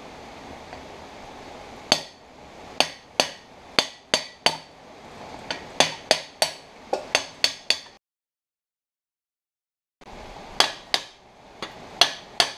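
Hammer striking a pipe sleeve used as a bearing driver, seating a new bearing into a John Deere 535 baler roller: about twenty sharp metal-on-metal strikes with a ringing clink, beginning about two seconds in and coming quicker in the middle. There is a two-second gap of dead silence partway through.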